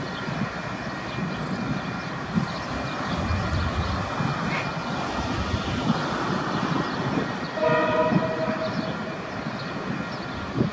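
Freight wagons loaded with shipping containers rolling over the rails, a steady rumble with clicks and knocks from the wheels. About two-thirds of the way in, a horn sounds for about a second and a half.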